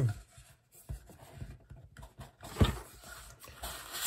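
Hands handling unboxing items on a desk mat and in a foam-lined wooden box: soft rustles and light knocks, with one short sharp knock about two and a half seconds in and a burst of rustling near the end.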